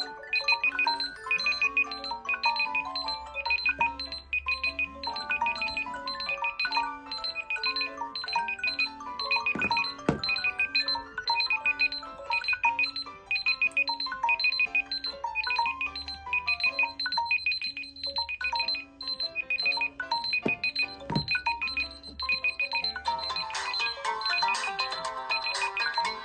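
Several smartphone alarm and timer tones sounding at once: a steadily repeating high beep over overlapping melodic ringtones. Two sharp knocks come from the phones being handled, and another phone's alarm joins near the end, making the tones denser and louder.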